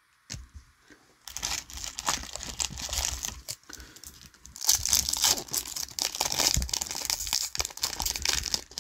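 Foil wrapper of a Topps Chrome MetaZoo trading-card pack being crinkled and torn open by hand. It is a dense crackle that starts about a second in and grows louder around the middle.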